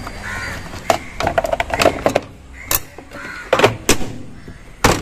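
Crows cawing several times, mixed with a series of sharp clicks and knocks.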